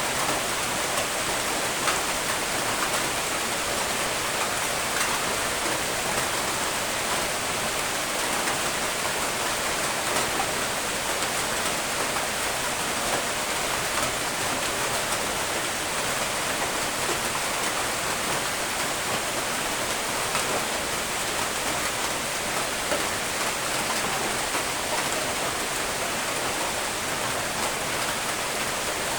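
Steady rain falling, an even hiss of many drops with faint individual drop ticks, with no let-up or thunder.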